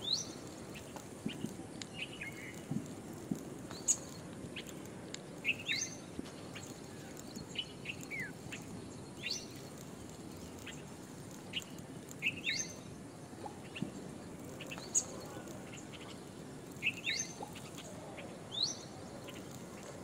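A bird calling repeatedly with short squeaky chirps that sweep upward, some followed by a lower falling note, one every second or two, with a few faint ticks between them.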